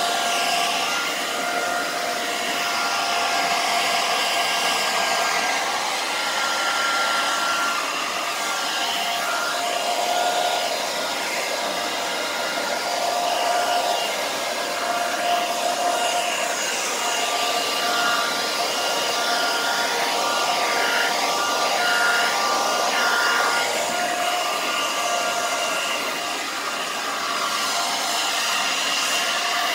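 Handheld electric hair dryer blowing steadily, its motor whine wavering slightly in pitch and strength as the nozzle is moved around a wet puppy's coat.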